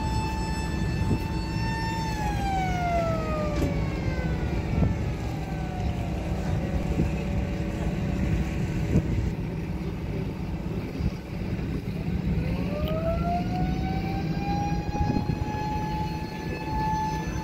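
A machine's whine with several overtones over a low engine rumble. It holds steady, glides down in pitch about two seconds in, stays lower for several seconds, then climbs back up to its first pitch, with a few scattered knocks.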